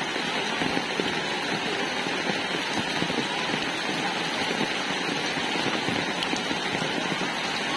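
Heavy monsoon rain falling steadily: an even hiss with a dense spatter of fine drop ticks.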